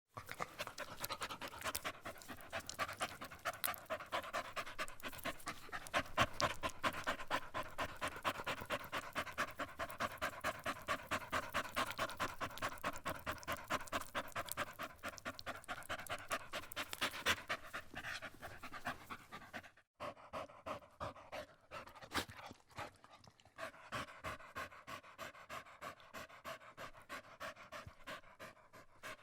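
Dog panting: fast, rhythmic breaths in and out, with a short break a little over two-thirds of the way through.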